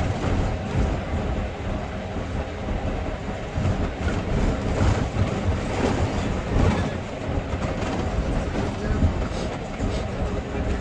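Steady low rumble of a moving vehicle, with voices faint underneath.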